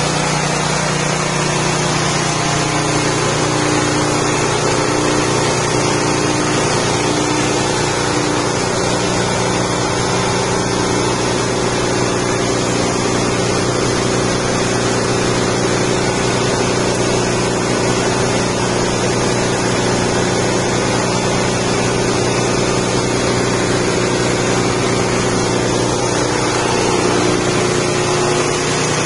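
Rice-husk grinding mill driven by a 6.5 HP petrol engine, running steadily at a constant speed.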